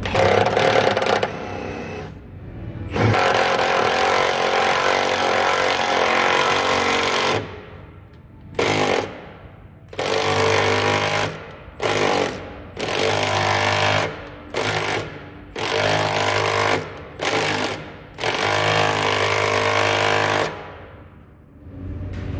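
Cordless impact wrench hammering through a socket extension in about ten trigger pulls, each from under a second to about four seconds long, running a hitch mounting bolt into the vehicle's frame.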